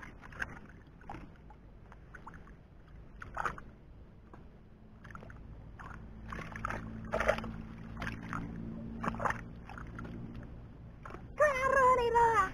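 Hands scooping and sloshing muddy water in a small dug pit: irregular wet splashes and gurgles. Near the end a brief, loud call cuts in, falling in pitch.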